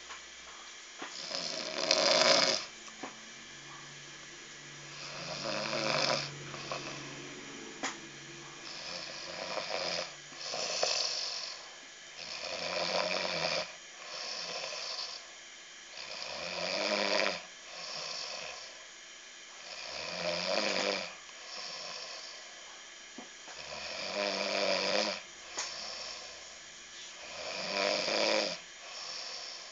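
A sleeper snoring, about eight snores spaced roughly three and a half seconds apart, each lasting a second or so.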